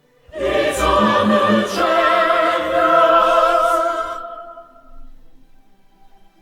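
Music: massed voices singing a loud, held operatic choral chord with vibrato for about four seconds, then fading away.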